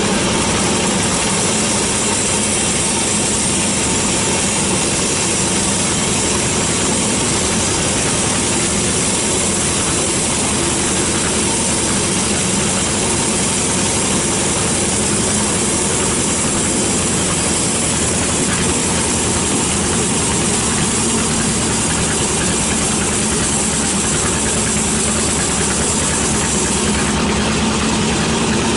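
Sawmill band saw running and ripping lengthwise through a teak log: a steady machine drone under the hiss of the blade in the wood. Near the end the high hiss changes as the cut comes through.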